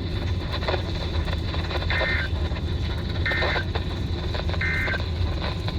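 Emergency Alert System end-of-message code sent three times over a weather-radio broadcast: three short two-tone data chirps about a second and a half apart over steady radio hiss and a low hum. This marks the end of the marine warning just read.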